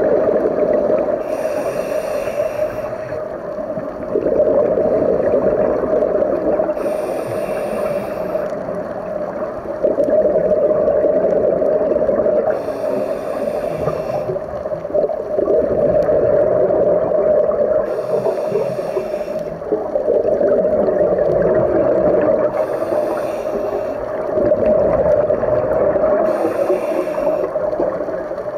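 Scuba diver breathing through a regulator underwater: six hissing inhales through the demand valve about five seconds apart, each followed by a long bubbling rumble of exhaled air.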